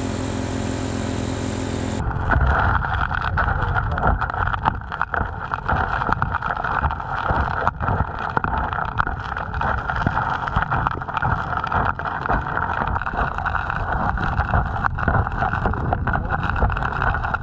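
The Honda GXH50 four-stroke engine driving the gold dredge pump runs steadily. About two seconds in, the sound turns muffled and underwater: water rushes into the suction nozzle, with frequent clicks and knocks of gravel and stones being sucked up.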